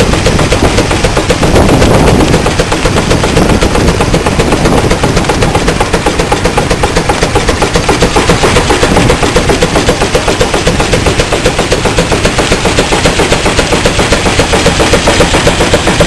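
Single-cylinder steam traction engine working hard under the load of a belt-driven threshing machine: rapid, even exhaust beats with the clatter of its crosshead and valve gear.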